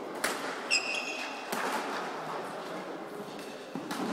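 Badminton doubles rally: sharp racket hits on the shuttlecock and sports shoes squeaking on the court floor. There are two hits in the first second, one with a brief high squeak, and another hit near the end.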